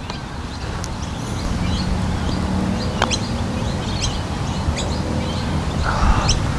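Small birds chirping in short high notes over a steady low rumble, with a single sharp click about three seconds in: the putter striking the golf ball.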